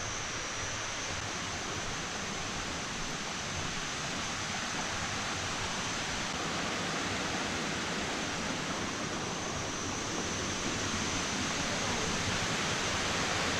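Waterfall water rushing in a steady, even roar that grows gradually louder.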